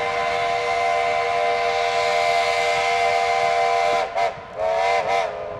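A steam locomotive's multi-note chime whistle sounds several tones together. It gives one long blast, then about four seconds in a short blast and two more short blasts in quick succession.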